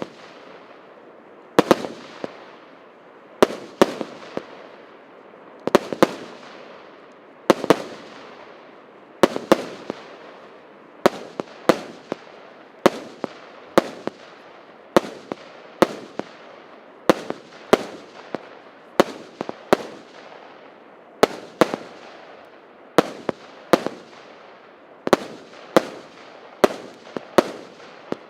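A 100-shot fireworks cake firing shot after shot. Sharp reports come every second or two, often two close together, and each trails off in a fading crackling hiss.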